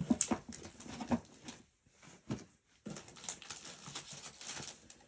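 Rustling, light taps and clicks of plastic-sleeved rubber stamp packs being handled and picked up, as short scattered sounds with brief quiet gaps.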